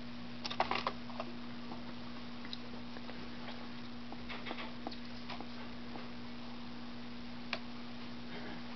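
Pet sparrow pecking at and flinging a noodle: scattered small taps and clicks, with a quick cluster about half a second in and single ones later, over a steady low hum.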